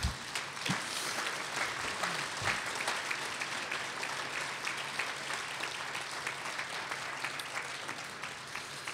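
Audience applauding: many hands clapping at an even level, thinning slightly near the end.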